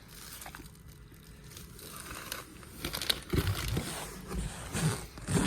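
Packing wrap crinkling and rustling as parts are unwrapped by hand, with a few dull knocks. It is fairly quiet at first and gets busier about three seconds in.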